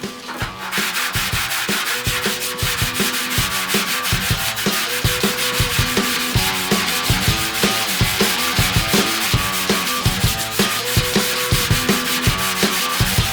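Body filler being hand block-sanded with 40-grit paper on a Durablock: a coarse rasping scrape, stroke after stroke in quick succession, starting in earnest about half a second in.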